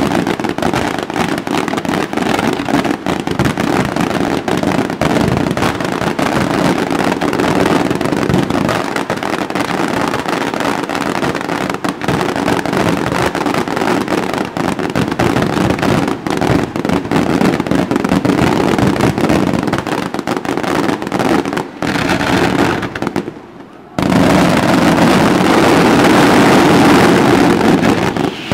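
Aerial fireworks display: a continuous barrage of bangs and crackling shell bursts. It drops away briefly about 23 seconds in, then comes back louder.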